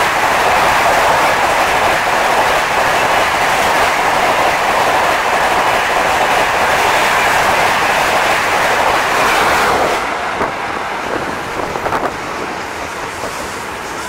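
Rajdhani Express LHB passenger coaches passing at speed close by: a loud, steady rush of wheels on rails with some clickety-clack. About ten seconds in the sound drops abruptly to a lower level, with a few sharp clicks.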